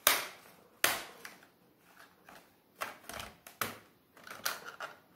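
Plastic back cover of an Acer Aspire E15 laptop being pried off by hand: two sharp snaps about a second apart as retaining clips let go, then a run of lighter clicks and rattles of the plastic.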